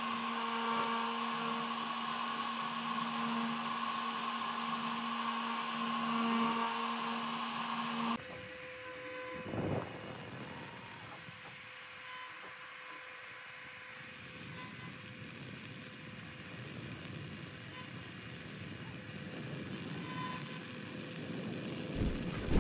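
CNC-Step High-Z router's spindle running with a steady whine as a 60-degree V-bit engraves lettering into a wooden board. About eight seconds in, the sound drops abruptly to a quieter, higher steady whine, with a short noisy burst a second or so later.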